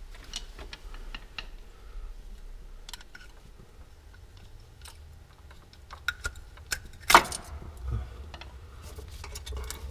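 Scattered small metallic clicks and taps of hands and a tool working at an engine's water pump seat, pulling the old pump gasket off the block, with one louder knock about seven seconds in.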